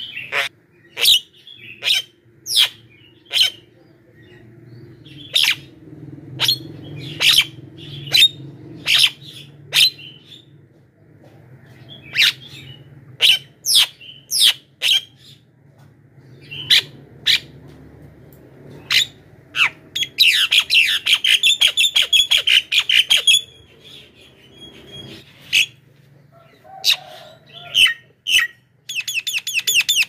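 Javan myna calling: a string of short, sharp single calls about one a second, broken about two-thirds through by a rapid chattering run of a few seconds, with another run starting near the end.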